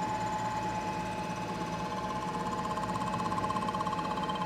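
KBC knee mill running a Walter M4132 face mill with polished inserts, power-fed across an aluminum water pump housing on a light finishing cleanup pass. A steady whine sits over a low hum, and the whine takes on a fast pulsing from about halfway through.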